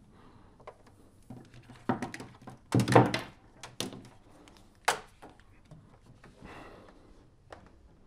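Handling knocks and thuds as a black plastic device is unplugged and lifted, its cables and fittings clattering: a few separate knocks, the loudest about three seconds in.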